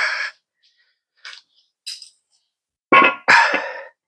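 Heavy steel suspension parts being handled, with short scraping, rasping noises: one at the start, two faint ones in the middle, and two loud ones near the end.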